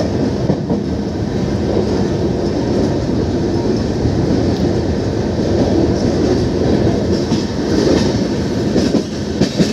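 Passenger express train moving, heard from on board: a steady rumble of wheels on the rails with clickety-clack from the rail joints.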